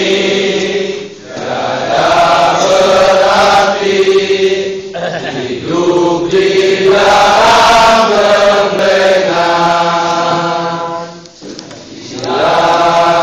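A large group of students singing a farewell song together in unison. The long held phrases are broken by short pauses for breath about a second in, near five seconds and near the end.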